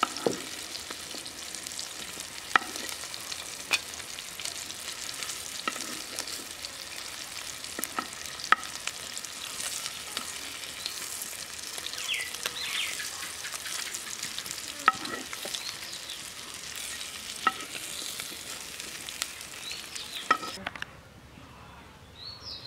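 Hilsa fish pieces sizzling steadily as they fry in oil in a frying pan, with sharp clinks of a metal spatula against the pan every few seconds. The sizzle drops away near the end.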